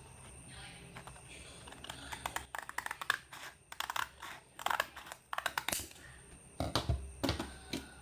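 Irregular light clicks and taps of tweezers working on an LED lamp's parts, with a few heavier knocks of handling near the end.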